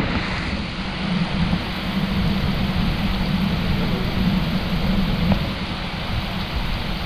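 Heavy downpour heard from under a roof overhang: a steady hiss of rain with a low rumble underneath.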